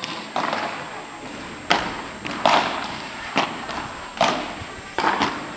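A padel rally: the sharp pops of solid paddles striking the ball, about one a second, six or so in all, with two in quick succession near the end.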